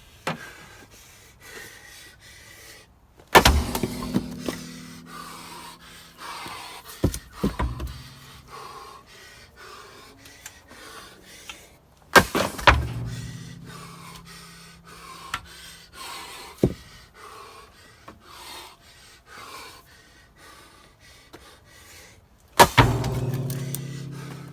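Ash logs being split for firewood: three heavy splitting blows about nine seconds apart, each followed by a low ringing that dies away. Lighter wooden knocks come between the blows.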